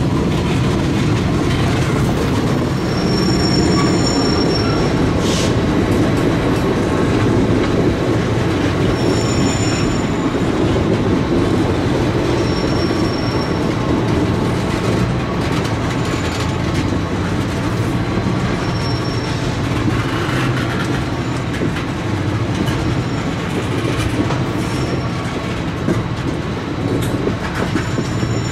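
Freight train tank cars rolling past on curved track: a steady rumble of steel wheels on rail, with brief high-pitched wheel flange squeals every few seconds and occasional clicks of wheels over the rail.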